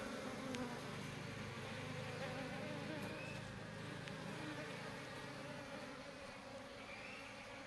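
A dense colony of honeybees giving a steady low buzzing hum close up as the swarm crawls into a wooden hive box. The hum eases off a little toward the end.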